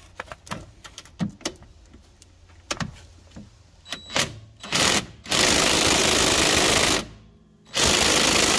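DeWalt 20V cordless 1/4-inch impact driver hammering through a socket adapter on a seized 14 mm transaxle fill plug. It fires in bursts: two short ones about four and five seconds in, a long one of almost two seconds, then after a short pause another that runs on at the end. The plug has not yet broken loose. Before the bursts come a few light clicks and knocks.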